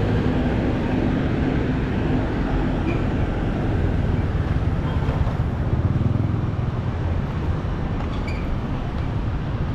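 Street traffic passing close by: motorcycle and car engines and tyre noise as a steady rumble, swelling as vehicles pass about halfway through.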